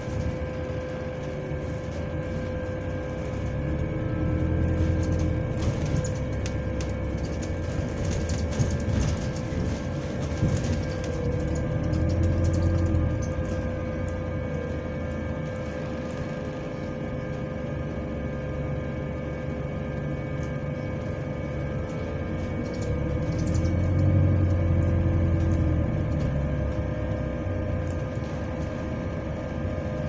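A bus's fan whining steadily, several pitches held together, which the rider takes for a weird fan noise, heard from inside the bus. The low drivetrain rumble swells and fades three times underneath.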